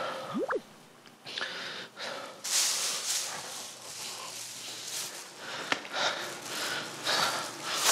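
A man breathing hard, catching his breath after exertion, in repeated noisy breaths. A short rising whistle-like tone comes about half a second in.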